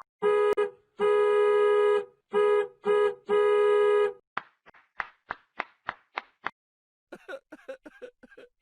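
A car horn honking in two short beeps and a long one, then the same again. It is followed by a run of about seven sharp clicks, roughly three a second.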